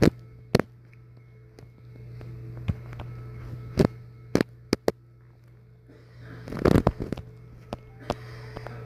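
Scattered sharp taps and clicks, with a short burst of rustling handling noise about two-thirds of the way through, over a steady low hum: a phone being handled and tapped while drawing on its touchscreen.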